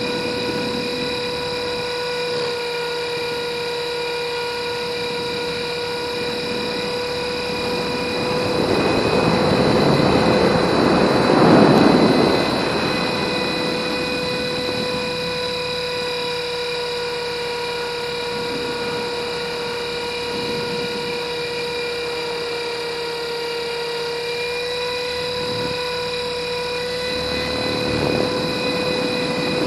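RC helicopter in flight, heard from its onboard camera: a steady high motor-and-rotor whine with a slight dip in pitch now and then. A rush of wind noise swells over it for a few seconds about a third of the way in, and again near the end.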